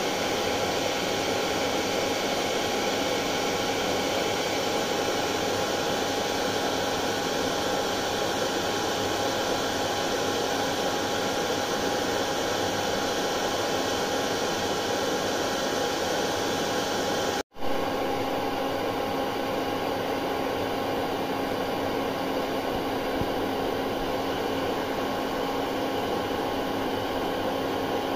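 Hair dryer running steadily: a constant rush of blown air over a steady motor hum. About seventeen seconds in, it cuts out for an instant and comes straight back with a slightly different hum.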